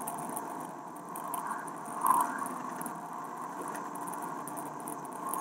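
Steady road and cab noise inside a moving lorry cab, with faint irregular ticking and a brief louder moment about two seconds in.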